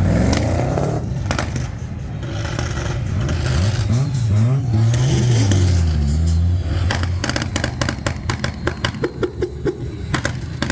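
Quad-turbocharged VL Holden Commodore engine revving up and down in a few blips, then from about seven seconds in a quick run of sharp crackles and pops.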